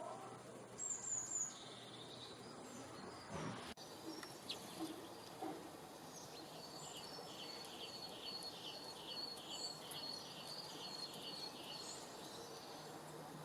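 Birds singing over a steady outdoor hiss. A short high twittering call comes about a second in, then from about six seconds a long run of evenly repeated notes, two or three a second.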